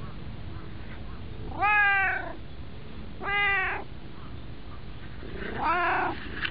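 Domestic cat meowing three times, each meow short and rising then falling in pitch.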